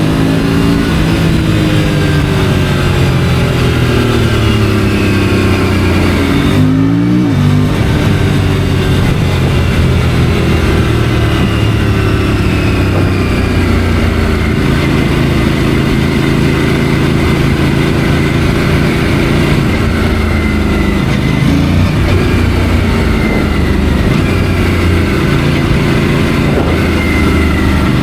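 Aprilia RS 457's 457 cc parallel-twin engine under way: revs falling over the first few seconds, a short quick blip of revs about seven seconds in, then running at fairly steady revs with small rises and falls.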